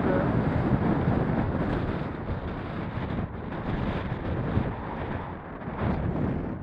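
Strong wind of 25 to 30 mph buffeting an action camera's microphone: a loud, gusting rumble with no engine tone, easing a little after about two seconds.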